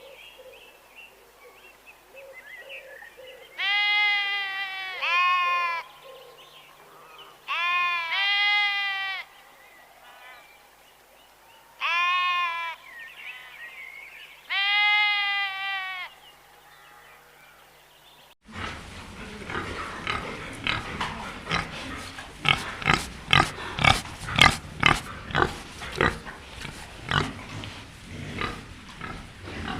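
A livestock animal bleating six times, in pairs and singly, each call a clear pitched wavering bleat. About 18 seconds in, the recording cuts to another animal making rapid, harsh, irregular grunts, louder than the bleats.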